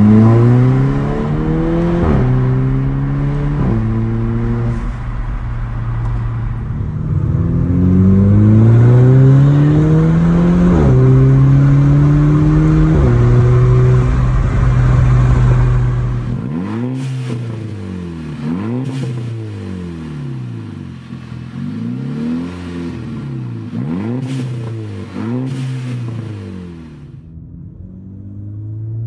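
Mk6 Volkswagen GTI's turbocharged 2.0-litre four-cylinder running with its downpipe removed (open downpipe). It accelerates hard, the pitch climbing and then dropping at each gear change. From about halfway through comes a run of short revs, each rising and falling in quick succession.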